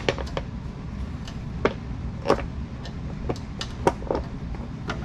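Irregular metal clicks and taps from hand tools and metal scooter parts being handled and fitted together during assembly, over a steady low hum.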